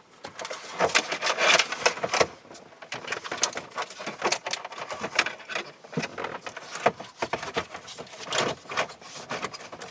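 Handling noise from a car head-unit install: a double-DIN mounting bracket and plastic trim frame being pushed into the dash opening, with wires rustling and parts clicking and scraping in an irregular run of small knocks.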